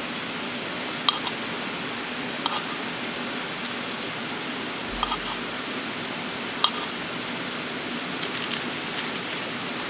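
Steady rush of running stream water, with short sharp clicks or taps every second or two and a quick cluster of them near the end.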